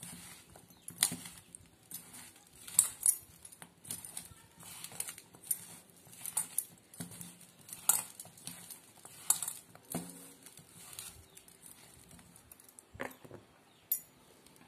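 Hands mixing flour-coated bitter gourd slices in a stainless steel bowl: irregular rustling and squishing, broken by sharp ticks of fingers and slices knocking against the metal bowl.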